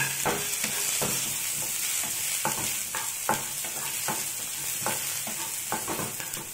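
Shallots, garlic and ginger sizzling in butter in a nonstick frying pan, with a steady hiss, while a wooden spatula stirs them, scraping and knocking against the pan about two to three times a second.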